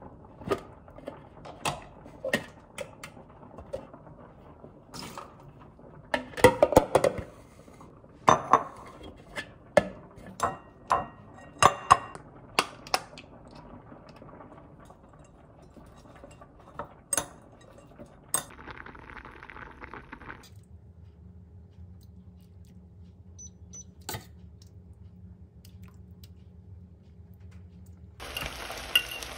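Kitchen clatter: bowls, lids and utensils knocking and clinking in irregular clicks for most of the first eighteen seconds, then a quieter stretch with only a faint low hum. Near the end, tomato sauce starts sizzling in a frying pan.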